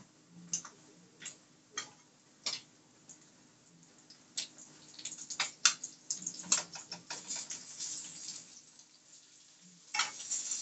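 Slices of hickory-smoked ham sizzling in a frying pan as they brown, with sharp taps and clinks of a fork against the pan as the slices are laid in and moved about. The sizzle and clinks thicken about halfway through, and a louder clatter comes near the end.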